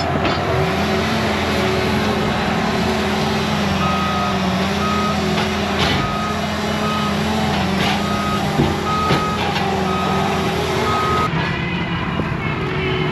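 Heavy machine's engine revving up and then running steadily, with its reversing alarm beeping at an even pace for several seconds while it backs up. A few sharp knocks come in over it.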